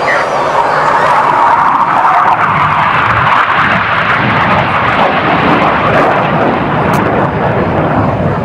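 A BAE Hawk T1 jet flying past, its Rolls-Royce Turbomeca Adour turbofan making a loud, steady rushing noise that eases slightly near the end.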